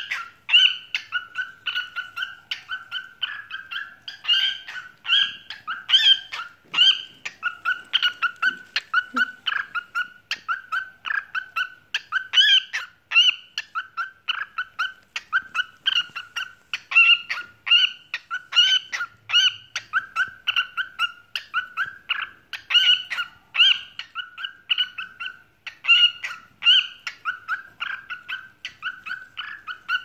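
Lutino cockatiel singing: an unbroken run of short, pitched chirping whistles, several a second.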